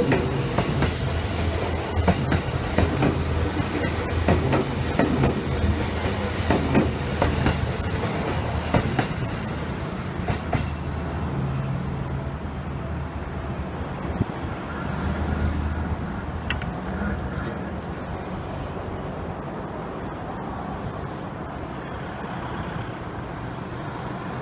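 Seibu 10000 series New Red Arrow limited-express train passing close by, its wheels clicking over the rail joints. After about ten seconds the clicking stops and the rumble slowly fades as the train moves away.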